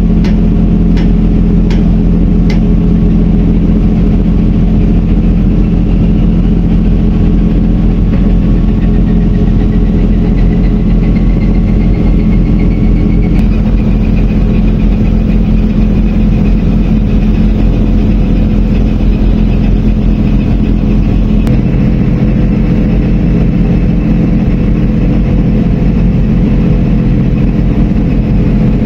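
Engine running steadily with a low, even hum, and a faint whine that rises slowly in pitch from about eight to fourteen seconds in, then holds.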